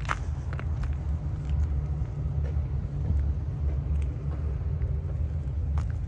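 Low, steady outdoor rumble with a few crunching footsteps on packed snow and ice.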